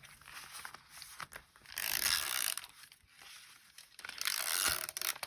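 Glue being applied to paper in two rasping strokes, about two seconds and four seconds in, with light paper handling between.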